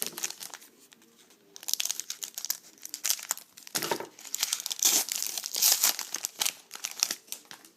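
A trading card pack wrapper being torn open and crinkled, a dense crackling that starts in earnest about a second and a half in and runs until shortly before the end.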